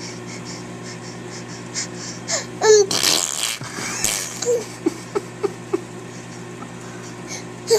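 A baby blowing a wet, sputtering raspberry with his lips, the mouth-made fart noise, with short squeaks and babbling sounds around it. A steady low hum runs underneath.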